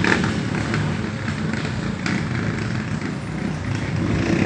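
Motor vehicles running slowly in stop-and-go traffic: a steady low engine rumble.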